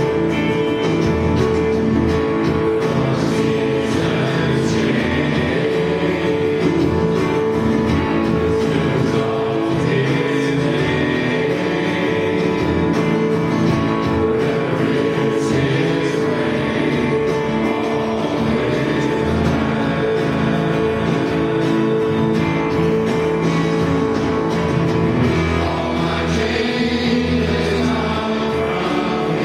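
A men's choir singing a gospel worship song with instrumental accompaniment.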